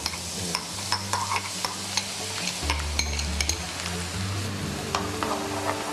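Minced garlic frying in hot oil in a nonstick wok, a steady sizzle with scattered light clicks, as the garlic is fried golden.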